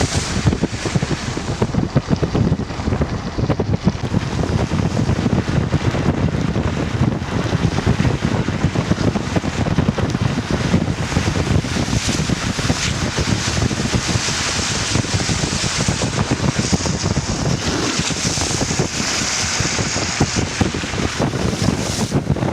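Steady rushing of water in a rain-swollen ravine stream or waterfall, a loud continuous churning noise.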